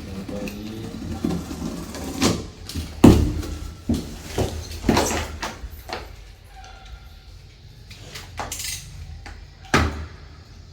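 Knocks and clatter from handling the cardboard-boxed indoor unit of an air conditioner during unboxing. There are several sharp knocks between about two and six seconds in, then a short scraping hiss and one more knock near the end.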